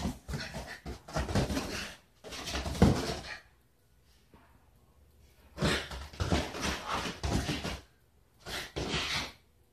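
Scuffling and thumps of a cat and a small dog play-fighting on a leather sofa. The noise comes in several bursts with short quiet pauses between them, and the sharpest thump falls about three seconds in.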